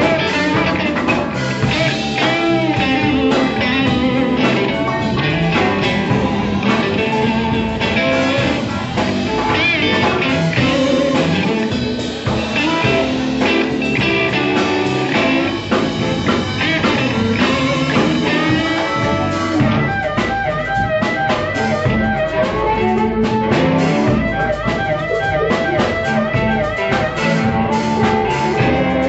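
Live blues band playing an instrumental passage: electric guitars over a drum kit and keyboard, with lead notes bending in pitch.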